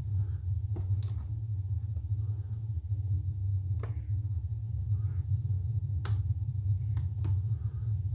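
Small, sharp clicks of a lock pick and tension wrench working the pins of a Mul-T-Lock high-security cylinder, coming singly at irregular intervals, the loudest about six seconds in. Under them runs a steady low hum.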